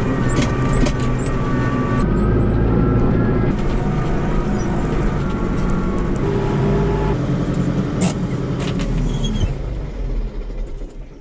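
Hürlimann tractor's diesel engine running under load, heard from inside the cab with a few rattles. Near the end it dies away as it is switched off.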